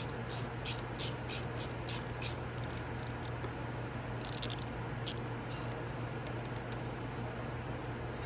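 Socket ratchet clicking in a steady rhythm, about three clicks a second, as the bolts are worked loose. Then a few scattered clicks and a brief rasp, over a steady low hum.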